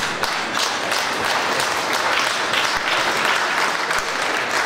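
Audience applause: many people clapping together. It starts abruptly, holds steady and thins out at the very end.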